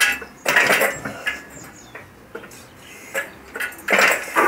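Hydraulic engine crane being pumped by its handle, with metal clinking and rattling on each stroke as it lifts an engine. The loudest strokes come about half a second in and again near the end.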